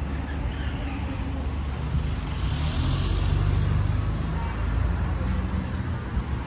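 Street traffic: a motor vehicle passes close by over a steady low rumble, growing loudest about three seconds in and then fading.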